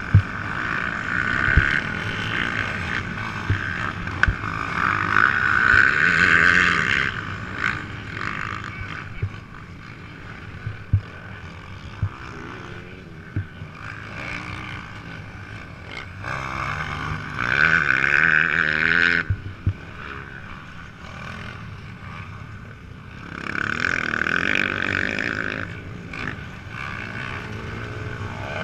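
Honda CRF250R's single-cylinder four-stroke dirt bike engine being ridden. It revs up loudly in three stretches (at the start, around the middle and again near the end) and drops back between them. A few sharp knocks come through along the way.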